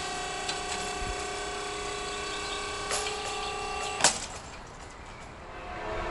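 Level-crossing barrier lowering while its warning signal sounds a steady ringing tone. Both end with a sharp clunk about four seconds in as the boom comes to rest, after which it is much quieter.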